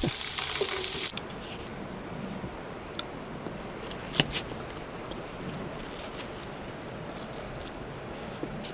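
Trout and sliced potatoes sizzling in a frying pan on a camp stove, cut off abruptly about a second in. Then quiet, with a few light clicks and scrapes of a fork against a paper plate.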